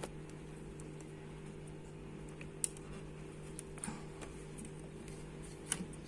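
Steady low hum with a few faint, scattered ticks and light clicks.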